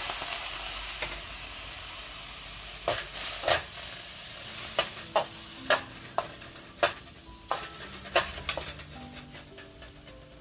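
Hot water sizzling and hissing on roasted semolina in a pan, fading over the first couple of seconds. Then a metal slotted turner stirring the thickening mixture, knocking and scraping against the pan in a run of sharp clicks, about two a second at their busiest.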